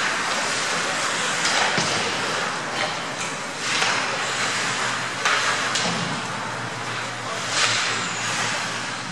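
Ice hockey play heard in a rink: skate blades scraping and carving on the ice in short hissing surges, several times, with a couple of sharp knocks, over the hall's echoing background.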